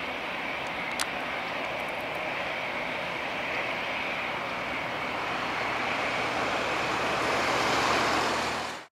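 Airbus A320-214's CFM56-5B turbofan engines at take-off thrust as the jet lifts off and climbs away: a steady jet roar with a high whine, growing a little louder toward the end, then cut off sharply. A single sharp click about a second in.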